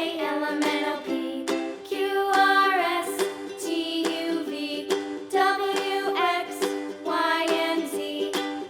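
Background music: a children's song with a singing voice over plucked ukulele-like chords.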